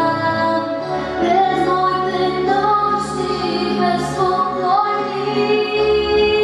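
A female voice singing a melody over an instrumental accompaniment, holding long notes and sliding between some of them.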